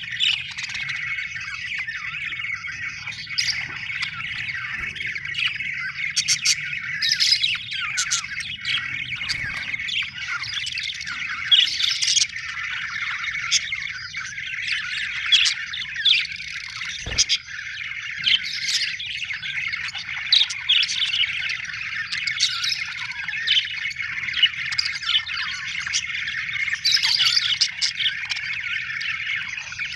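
Budgerigars chirping and warbling in a continuous chatter, with sharper squawks and chirps cutting in every second or two.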